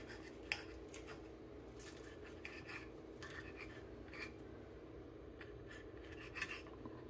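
Knife and fork sawing through toasted bread on a ceramic plate: faint scraping with a few light clicks of metal on the plate, the sharpest about half a second in.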